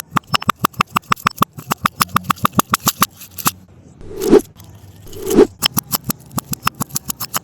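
Rapid crunching and crackling, about seven or eight sharp cracks a second, as something brittle is crushed, with two louder swooshing sounds about a second apart a little after the middle.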